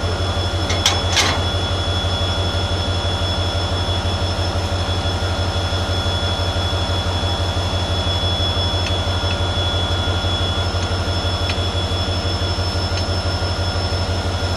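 Diesel locomotive engine idling with a steady, fast-pulsing low drone and a thin high whine over it. Two sharp metallic clicks about a second in, from the coupling gear being handled between the locomotives.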